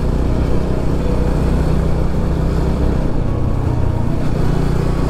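Motorcycle engine running steadily as the bike is ridden along a road, with no revving or sudden events.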